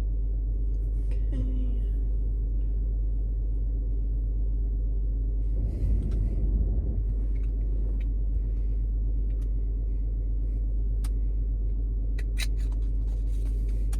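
Car engine idling while it warms up, heard from inside the cabin as a steady low hum. A brief louder noise comes about six seconds in, and a few light clicks follow near the end.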